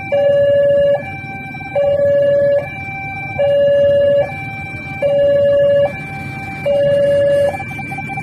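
Railway level-crossing warning alarm sounding its two-tone signal. A louder low tone alternates with a softer higher tone, the pair repeating a little more than every one and a half seconds, warning of an approaching train.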